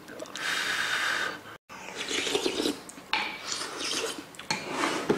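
A wooden spoon scraping and stirring in a black earthenware pot of sundae soup, then, after a cut, a person slurping hot soup off the spoon in several short sips.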